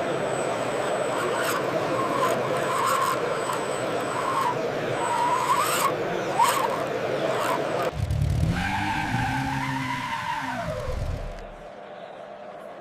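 Short squeals over a steady hiss, like small tyres skidding on a smooth floor. About eight seconds in this gives way to a low engine-like drone that rises and falls in pitch, typical of an RC model's engine sound, and turns quieter near the end.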